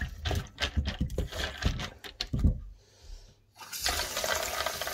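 Kibble clicking and rattling as a hand stirs it in a metal bowl, then, after a short pause, tap water running into the bowl in a stainless steel sink.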